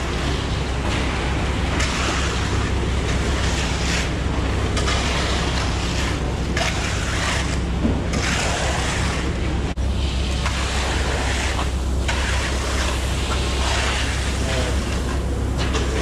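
Concrete mixer truck running steadily during a slab pour, a low engine drone under a continuous rushing noise, with a brief dropout about ten seconds in.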